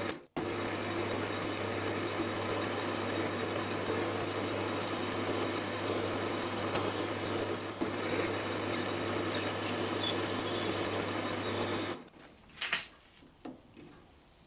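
Metal-turning lathe running steadily with a low motor hum while a drill bores the tapping hole for an M8 thread, the bit squealing thinly between about 8 and 11 seconds in. The machine stops abruptly about 12 seconds in, leaving a few faint clicks.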